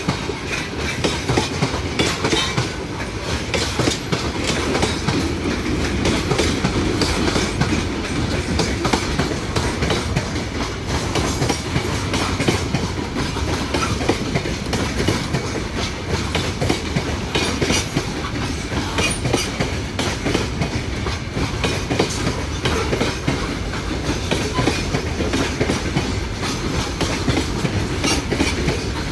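A long train passing without a break, its wheels clattering steadily over the rail joints.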